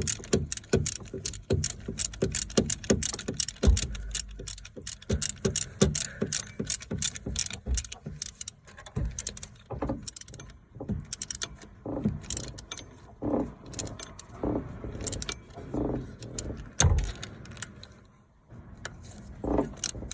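Hand ratchet clicking in quick runs of strokes, with metal clinks and a few duller knocks, as a compressor mounting bolt is run down snug by hand.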